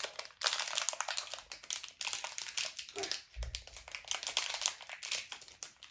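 Toy mystery blind bag crinkling and rustling in the hands as it is torn open, a dense run of irregular small crackles, with a single dull low bump about three seconds in.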